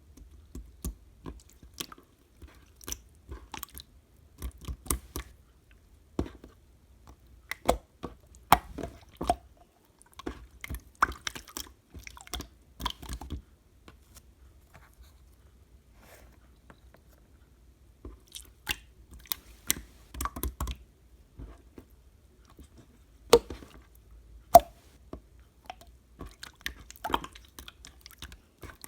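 Slime being squished and pressed by hand, giving irregular sticky pops and clicks in bursts with short pauses between.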